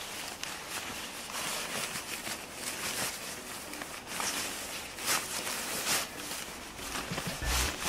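Oxford-cloth fabric of a folded ice-fishing tent rustling in irregular bursts as it is pushed down into its carry bag.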